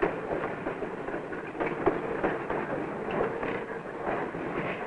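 Railroad freight car rolling along yard track: a steady rumble of wheels on rail with irregular clanks and clicks, and a faint steady whine for a couple of seconds in the middle.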